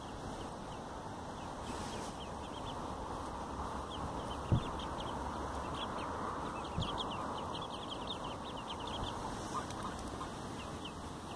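Mallard ducklings peeping: many short, high, downward chirps in quick succession. A single sharp knock about four and a half seconds in.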